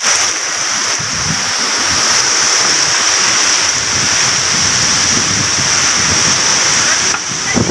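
Heavy rain pouring down steadily during a storm, a continuous loud hiss.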